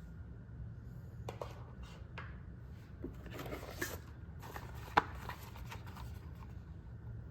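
Hands handling small items and their packaging: scattered soft rustling and light clicks, with one sharper click about five seconds in.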